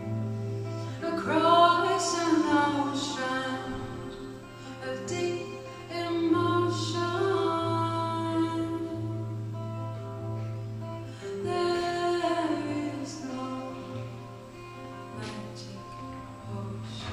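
A woman singing and accompanying herself on acoustic guitar, holding long notes that bend in pitch.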